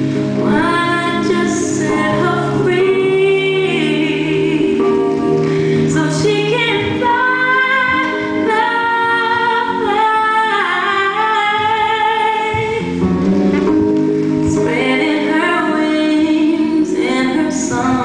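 Slow song with a woman singing long, sliding notes over sustained low chords, with choir-like backing voices.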